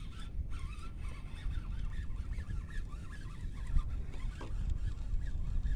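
Steady low rumble of wind on the microphone, with faint, scattered bird calls.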